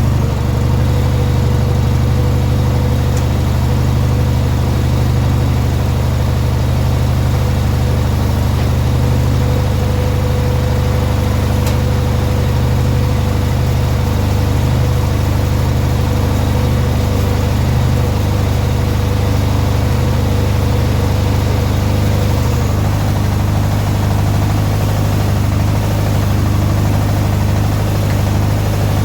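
18 hp Briggs & Stratton twin-cylinder engine idling steadily, with a thin steady whine over it that stops about 22 seconds in, where the engine note changes.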